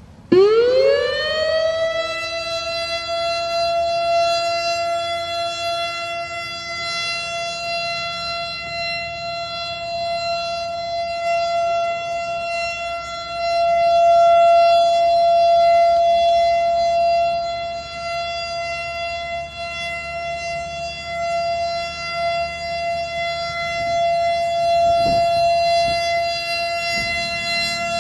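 Civil defense air-raid siren winding up fast from a low growl to a high wail in about two seconds, then holding one steady pitch, its loudness swelling and fading and loudest about halfway through.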